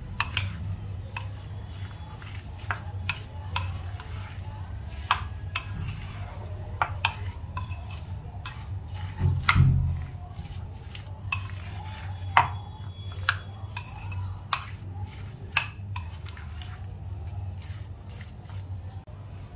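A spoon stirring chopped fruit in a creamy dressing in a bowl, with irregular clinks and taps of the spoon against the bowl over a steady low hum. A duller thump comes about halfway.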